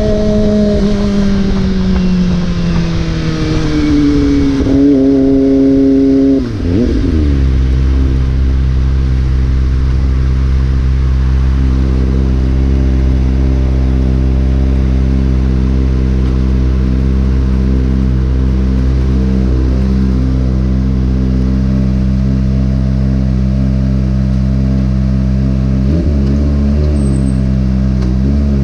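Motorcycle engine on the road, its pitch falling as it slows over the first six seconds. After a brief break in the sound, it runs at a steady speed.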